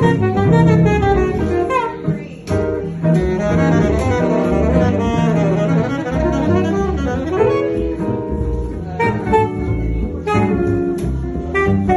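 Small live jazz combo: an alto saxophone plays a melodic line over double bass and archtop guitar accompaniment.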